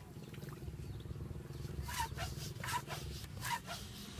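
Chickens clucking, a few short calls in the second half, over a steady low rumble.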